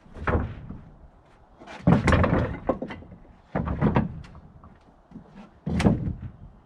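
Freshly sawn red pine boards being set down on a stacked lumber pile: wood knocking on wood in four clattering thuds a second or two apart.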